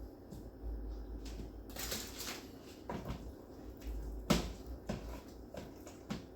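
Scattered knocks and clatter of kitchen handling while chicken wings are basted with marinade, with a brief wet rustle about two seconds in. The loudest knock comes a little past four seconds in.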